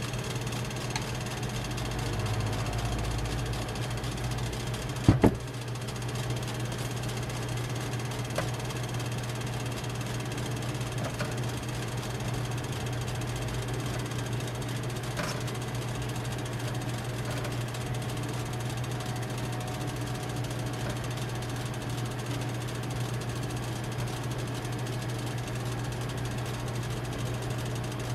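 Steady low machine hum, with a few light clicks of a metal spatula against a steel tray as Nutella is spread on a crepe. A short, loud double knock about five seconds in.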